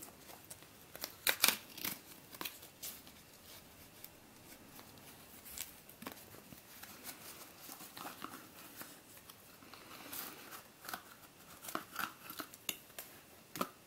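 A small cardboard puzzle-cube box being opened by hand: thin card flaps scraping and rustling, and a plastic cube sliding out of the box. There are sharper clicks and taps about a second in and again near the end.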